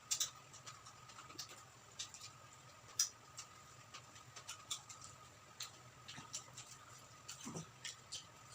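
Close-miked chewing of crispy deep-fried quail: small, irregular crunches and mouth clicks, a few every second, over a faint steady hum.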